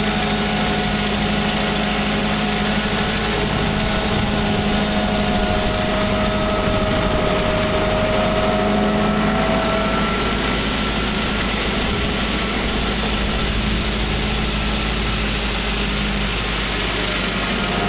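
Satoh Mitsubishi Bull compact tractor's engine running steadily from the driver's seat, its pitch drifting slightly.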